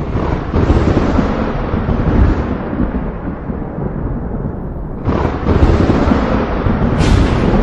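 Thunder: a long low rumble that fades somewhat, then a fresh clap begins about five seconds in and swells into rolling rumble, with another sharp crack near the end.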